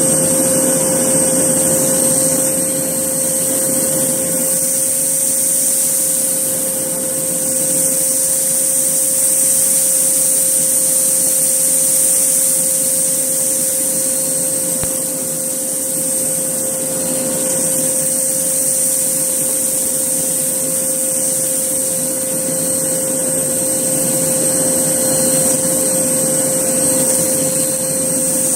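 Hoover Blaze canister vacuum cleaner running at full suction, its motor giving a steady high whine over the rush of air. The loudness swells and dips slightly as it is worked over the floor.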